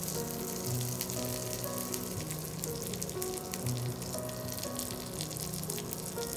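Hot fat sizzling and crackling steadily in a frying pan, over background music with held notes.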